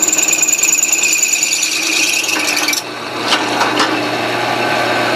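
Drill press with its bit cutting through a steel pipe, making a steady high-pitched squeal that stops about three seconds in as the hole is drilled through. The motor keeps humming, with a few light clicks and scrapes after the squeal stops.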